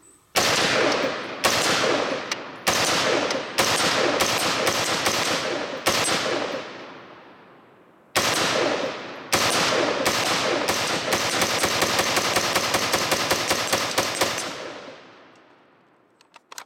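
HM Defense HM15 Commander MB5 AR-15 rifle firing semi-automatic shots, each with a long echo: a slower uneven run of shots, a pause, then the trigger pulled faster and faster into a rapid string of several shots a second before it stops.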